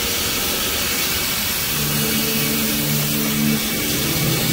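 A car engine running, coming in about two seconds in and dropping in pitch near the end, over a steady hiss.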